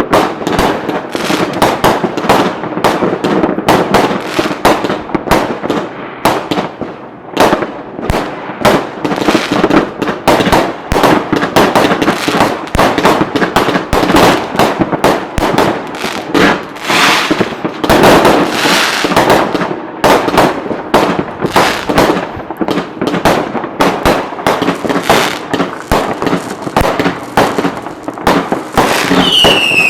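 Fireworks display: a dense, continuous barrage of bursting shells and crackling reports, many bangs a second. Near the end, a couple of gliding whistles from whistling shells join in.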